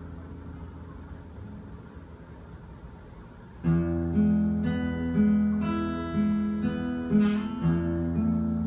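Solo acoustic guitar: a chord rings and slowly fades for about three and a half seconds, then plucked notes come in sharply, a melody over a held bass note.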